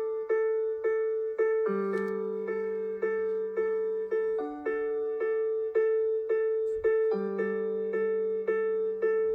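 A OnePlus 11 ringtone: an electric-piano melody of evenly repeated notes, about three a second, over a bass note that changes every few seconds.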